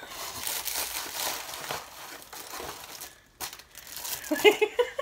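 Plastic bag of wrapped candy canes crinkling as it is handled and rummaged through, with a brief laugh near the end.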